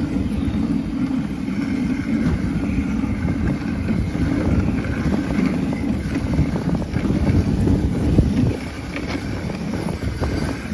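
Wind buffeting the microphone over the rumble and hiss of a moving dog sled's runners on packed snow. The low rumble drops back about eight and a half seconds in.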